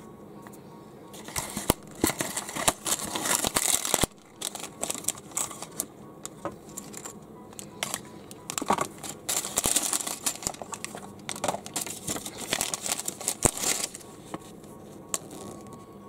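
Hands unpacking a small building-block set: a clear plastic bag of parts crinkling and a cardboard box rustling, in irregular bursts of crackling with small clicks. The crackling is busiest in the first few seconds and again through the second half.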